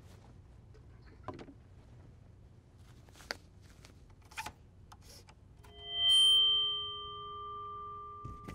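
A few faint knocks, then a ringing chord of several steady tones at once that starts suddenly about six seconds in, swells briefly and then holds at a lower level.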